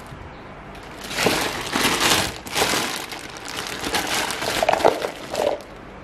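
Clear plastic courier bags wrapped around small parcels crinkling and rustling as they are picked up and handled, in irregular bursts starting about a second in.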